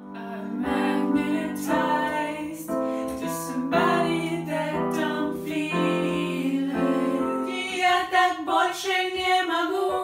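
Electronic keyboard played with a melody over held chords, the notes starting and stopping in clear steps. Near the end a voice sings along.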